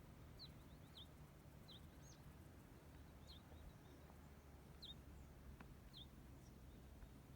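A small bird calling faintly with short, high, falling chirps, about one a second, over a low background rumble.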